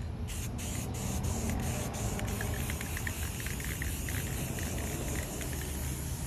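Aerosol spray-paint can spraying black paint: a steady hiss, broken by a few short bursts in the first couple of seconds, over a low background rumble.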